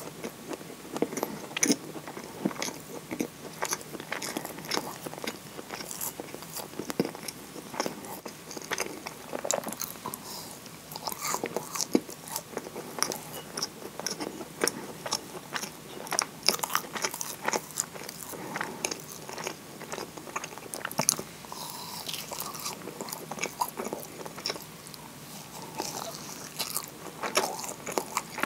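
Close-miked biting and chewing of a moist chocolate scone dipped in syrup, with many small irregular mouth clicks and soft crunches.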